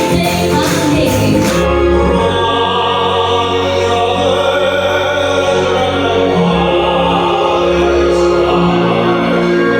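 Festive music with choir-like singing: a beat with percussion stops about a second and a half in, then the voices and accompaniment hold long, sustained chords.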